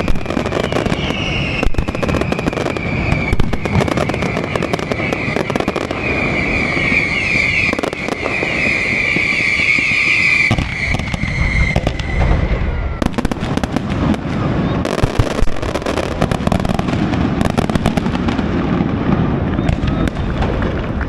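Aerial fireworks display by Pirotecnia Valenciana: a dense run of bangs and crackling, with a high shrill sound running over it that stops about twelve seconds in.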